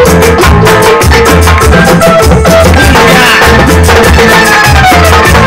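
Live Latin dance band playing an instrumental vamp: timbales and other hand percussion over electric bass and keyboard, with a steady dance beat.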